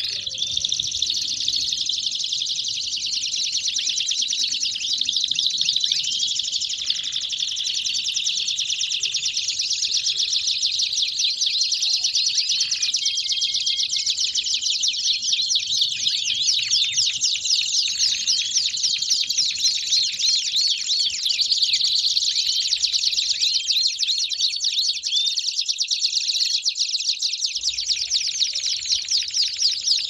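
Domestic canaries singing together, a dense, continuous stream of fast, high trills, rolls and chirps overlapping one another.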